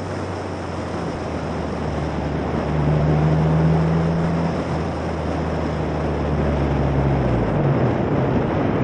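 A single-seater racing car's 1.6 Ford Duratec four-cylinder engine pulling hard on track, heard from on board with wind rushing over the car. The engine gets louder about a third of the way in, and its note drops away near the end.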